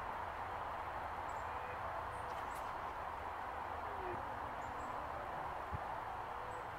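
Steady, even outdoor background hiss with a few faint, short, high bird chirps scattered through it.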